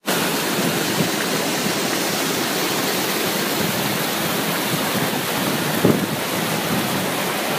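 Waterfall cascading between boulders into a pool, a steady loud rush of water heard close up.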